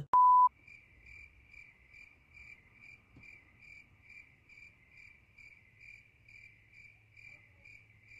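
A loud half-second beep tone, then a cricket-chirp sound effect: faint, even chirps at about three a second, the stock 'crickets' gag for an awkward silence.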